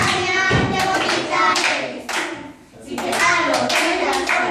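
Young children singing a song together while clapping their hands, with a short lull about halfway through.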